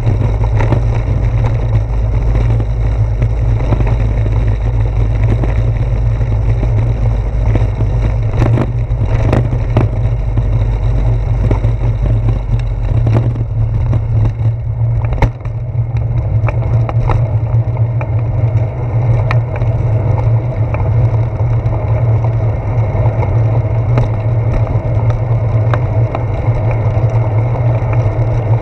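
Bicycle riding noise picked up through a handlebar-mounted GoPro Hero 4: a loud, steady low rumble of wind and road vibration, with scattered clicks and knocks from bumps in the damp pavement. The rumble briefly drops about fifteen seconds in.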